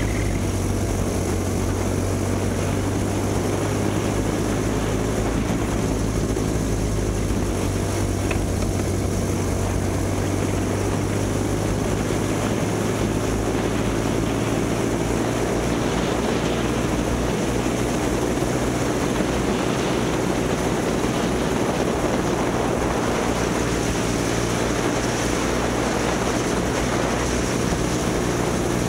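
Kid kart's small two-stroke engine running hard at racing speed, with a steady drone whose pitch rises and falls slightly with engine speed.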